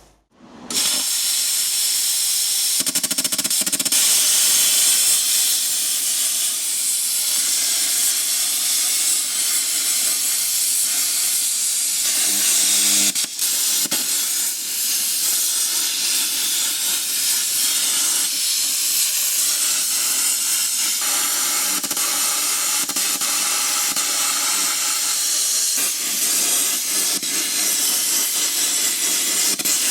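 Plasma cutter hissing steadily as it cuts through half-inch steel plate, starting about a second in.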